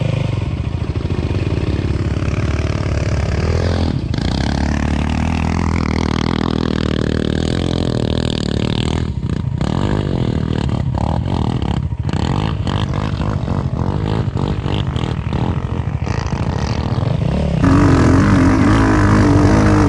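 ATV engine revving hard and easing off under full throttle, its pitch rising and falling, with the throttle cut briefly several times about halfway through. Music comes in near the end.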